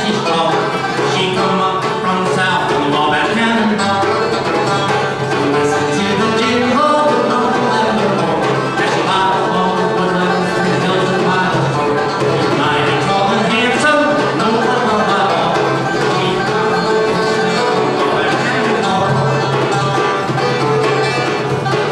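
Live bluegrass-style acoustic band playing steadily: banjo picking over strummed acoustic guitar, with a woman singing.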